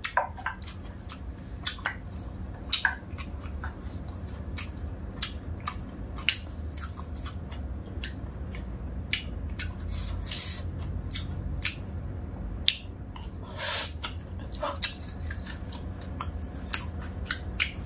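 Close-up eating sounds: chewing and wet mouth sounds of dry instant noodles, with scattered sharp clicks of wooden chopsticks and a wooden spoon against the plate, over a low steady hum.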